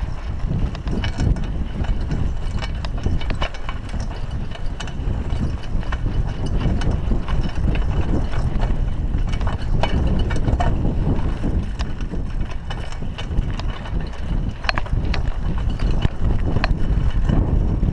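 Raleigh Ascent mountain bike riding over a rough, rutted dirt track: a steady low rumble of tyres and air on the camera, with frequent clicks and rattles as the bike jolts over bumps.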